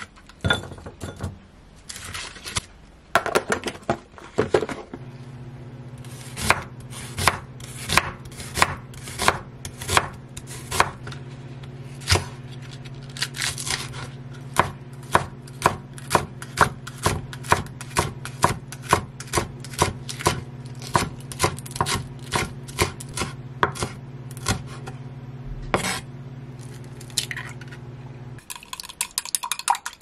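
A chef's knife chopping onion on a wooden cutting board in steady strokes, about two a second, over a steady low hum that stops near the end. In the last two seconds an egg is beaten in a glass cup, a quick rapid clinking.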